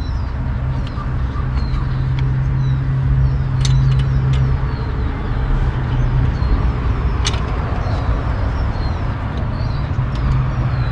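An engine idling steadily with a low hum, with a few sharp clicks from hand tools on metal, the strongest about seven seconds in.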